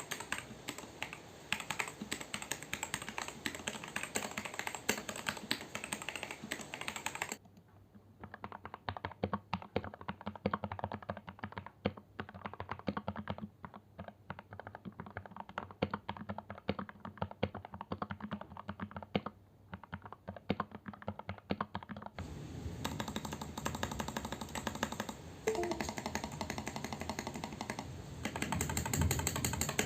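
Fast, continuous typing on a Daxa M84 Pro mechanical keyboard, its stabilizers lubed with Krytox GPL 205g0: a dense stream of key clacks. For a long stretch in the middle the clacks sound duller, then turn crisp again.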